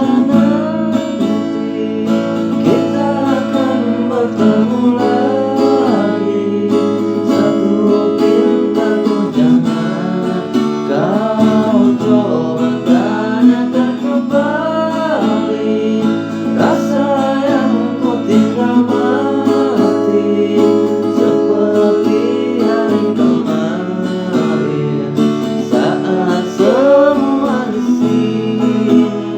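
Music: strummed acoustic guitar chords held under a melody line that slides up and down in pitch.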